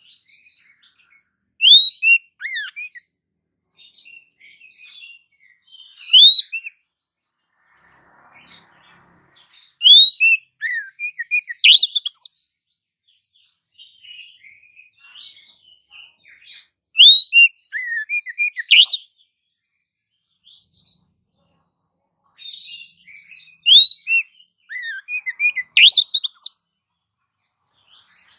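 Bird-trapping lure call: clusters of high, sharp chirps and quick down-sweeping whistled notes, repeating about every seven seconds with short pauses between.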